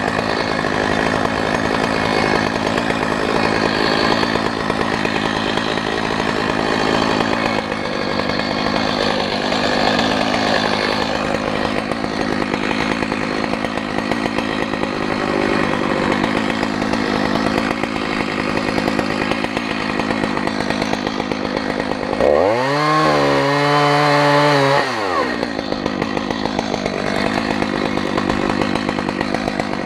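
Two-stroke chainsaw running steadily, then revved up and back down once about two-thirds of the way through, and revving up again right at the end.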